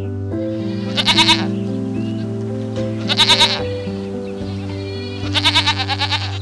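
Goat bleating three times, each a short quavering bleat, the last one longest, over steady background music.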